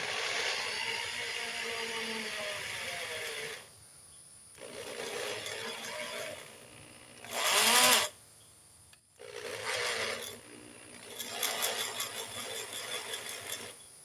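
Small handheld electric power tool run in about four bursts with short pauses, its motor pitch dipping and recovering as it cuts into a hard walnut gunstock; one brief, louder, harsher burst comes about eight seconds in.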